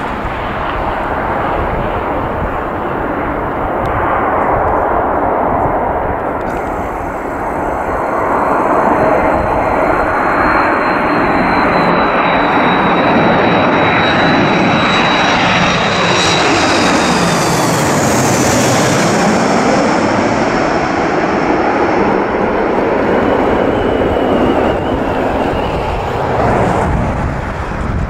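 Jet engines of twin-engine wide-body airliners on landing approach, a steady loud roar. A high engine whine falls slightly in pitch, and the roar sweeps in pitch as an aircraft passes close overhead a little past the middle.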